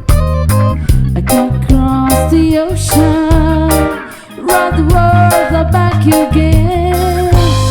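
Reggae band playing a song: a sung vocal line over guitar, bass and drums. The music drops away briefly about four seconds in, then comes back in.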